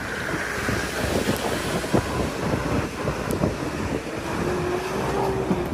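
Train passing close by: a steady rumble of wheels on the rails with irregular clattering strokes.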